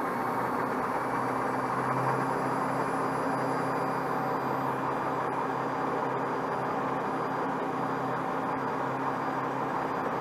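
QuietDrive QD330 electric marine drive motor running steadily at about 2000 RPM: an even hum and whine with a few steady tones over a rushing noise. It reads about 76 and a half decibels on a sound meter.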